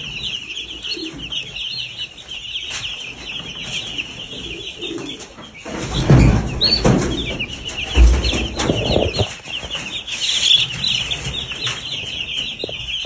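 A crowd of young chickens cheeping constantly in rapid high chirps. From about six to nine seconds in, louder rustling and knocks join them, with a couple of thumps.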